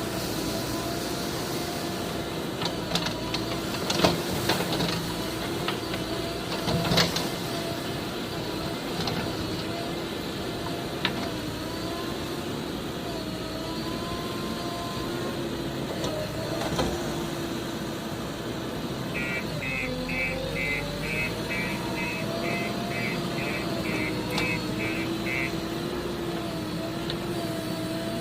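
A heavy vehicle's engine running steadily, with a few sharp knocks in the first several seconds. Past the middle, a reversing alarm beeps about twice a second for several seconds.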